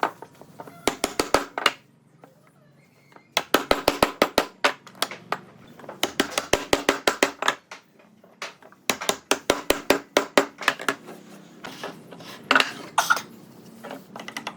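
Quick runs of sharp metallic tool strikes, about six a second, like a hammer tapping, in bursts of one to two seconds with short pauses between them.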